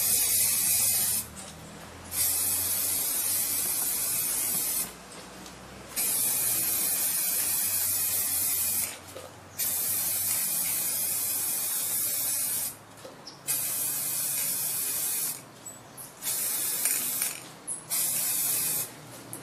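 Aerosol spray-paint can hissing in repeated long bursts of two to three seconds, with short breaks between them, about seven bursts in all.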